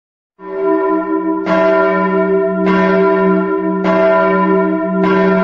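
A single church bell tolling, struck five times at an even pace of roughly one stroke a second, each stroke ringing on into the next. It starts about half a second in after a brief silence.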